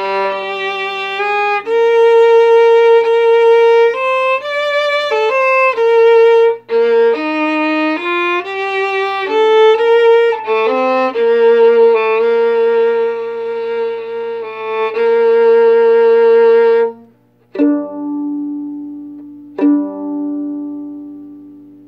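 Solo violin playing a slow melody in sustained bowed notes, then two last notes plucked and left to ring away. A couple of F-sharp accidentals are missed, by the player's own account.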